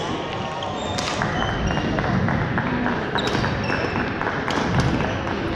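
Badminton hall din: sneakers squeaking on the hardwood floor, scattered sharp racket hits on shuttlecocks, and a steady murmur of voices echoing through the large hall.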